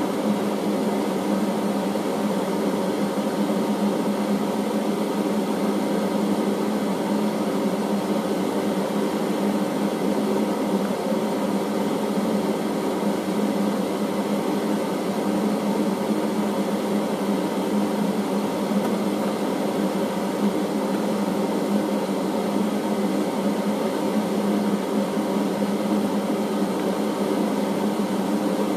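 Steady mechanical hum of a running motor or fan, unchanging in pitch and level.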